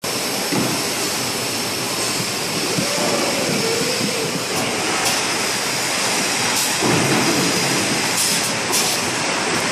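Jinjun two-layer HDPE extrusion blow molding machine running: a steady, loud mechanical din with a hiss over it. There are several short bursts of hiss in the second half.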